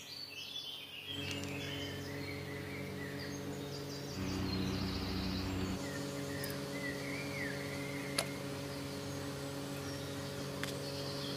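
Outdoor ambience: small birds chirping over a steady low hum, with a couple of faint clicks.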